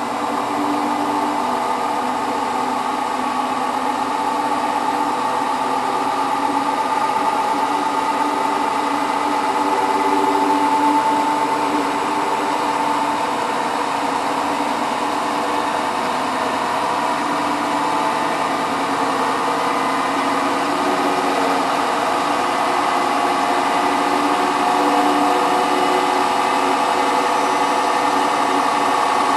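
Hotpoint WT960 washing machine in its final fast spin toward 1600 rpm: the drum spinning at high speed with a steady, slightly wavering motor whine.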